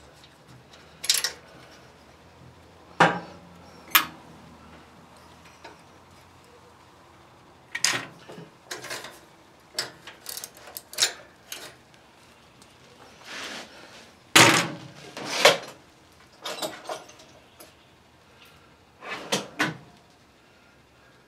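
Scattered clinks and knocks of metal parts and tools as a mini bike's carburetor and throttle linkage are handled on the engine: about a dozen short, sharp sounds with quiet gaps between them.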